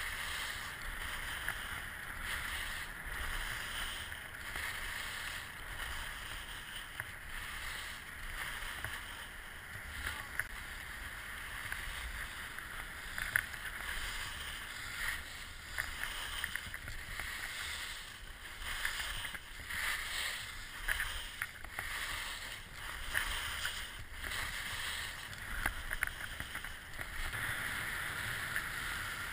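Ski-mountaineering skis sliding and scraping over packed snow on a fast downhill run: a steady hiss that swells and fades every second or two, with a few sharper scrapes. Wind rumbles on the microphone underneath.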